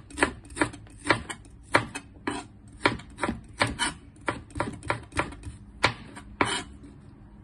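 Chef's knife slicing shallots and garlic cloves, the blade knocking on a plastic cutting board about two to three times a second. The cuts stop about a second before the end.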